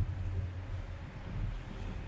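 Wind buffeting the microphone: an uneven low rumble that swells and fades, over a faint steady hiss.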